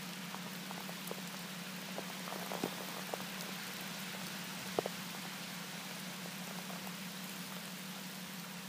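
Steady rain hissing in the forest, with scattered individual drops ticking close by, over a faint steady low hum.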